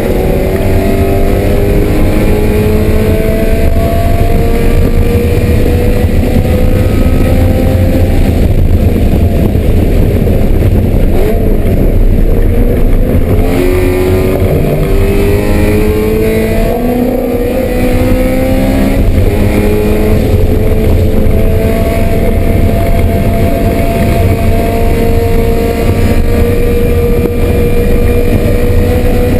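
Race car engine at full throttle, its pitch climbing slowly through each gear and dropping back at upshifts several times, under heavy road and wind rumble.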